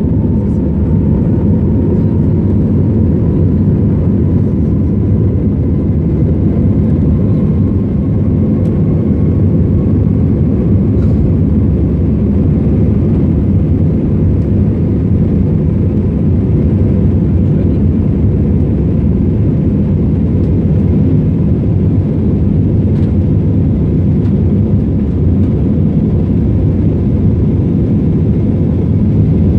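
Airbus A320 cabin noise during the climb after takeoff: the steady low rumble of the engines and airflow heard inside the cabin. A faint whine rises slightly in pitch over the first ten seconds or so.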